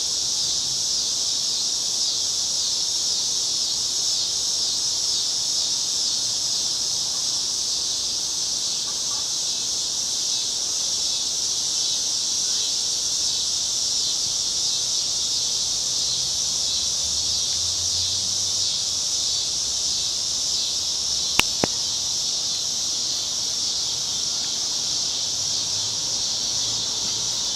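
Chorus of summer cicadas: a steady, unbroken high-pitched buzz. Two sharp clicks sound close together about three-quarters of the way through.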